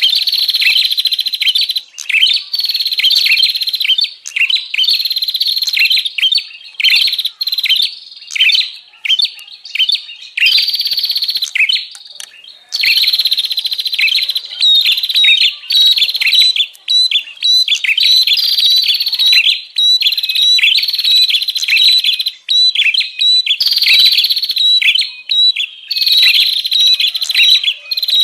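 Prenjak (prinia) calling busily: rapid, high chattering calls repeated in long quick runs with brief pauses. This is a lure recording for drawing in wild prenjak.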